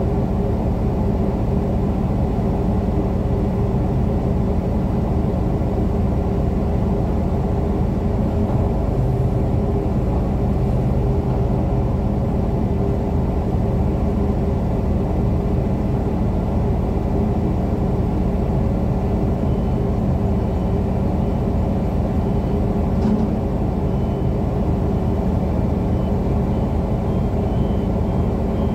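Crane engine running at a steady drone, heard from the operator's cab.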